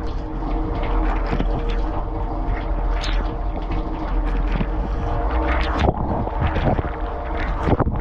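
Bosch dishwasher in its wash cycle, heard from inside the tub: the circulation pump hums steadily under the hiss and spatter of the spray-arm jets striking the racks and dishes, with a few sharper splashes here and there.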